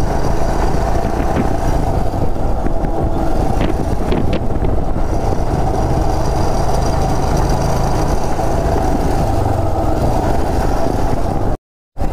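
Royal Enfield 411cc single-cylinder motorcycle engine running steadily under way, heard from the rider's seat with road and wind noise. The sound cuts out for a moment near the end.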